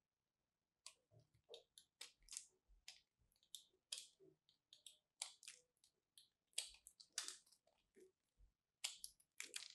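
Utility-knife blade carving and shaving a bar of crunchy soap: a string of short, crisp scraping crunches at an uneven pace, starting about a second in.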